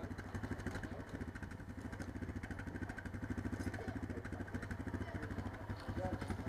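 ATV engine running at a steady idle, an even rapid putter with no revving.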